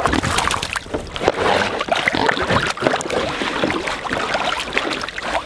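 A pig wallowing in a shallow plastic kiddie pool, its body sloshing and splashing the muddy water in a steady run of irregular splashes close by.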